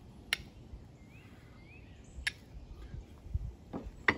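Steel striker struck against a flint to throw sparks onto char cloth: three sharp strikes about two seconds apart, the last the loudest. A faint bird chirp comes between them.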